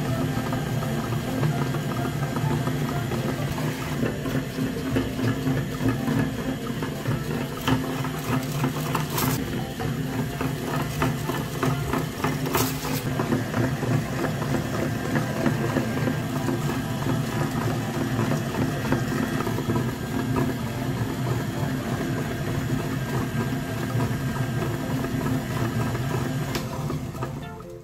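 Electric meat grinder running steadily with a hum and a rattle as it pushes soft dough out through its cutting plate; the sound fades away near the end.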